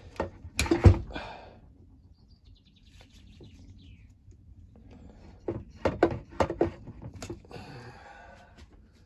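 Clicks, knocks and scraping of hedge trimmer parts being handled as a fuel line is worked off the fuel tank, in two bursts, the loudest knock about a second in. A bird chirps faintly in between.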